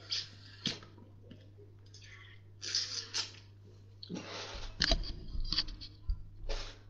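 Swallowing from a drink bottle and breathy exhales, then knocks and rustling as the webcam is handled, over a steady low electrical hum.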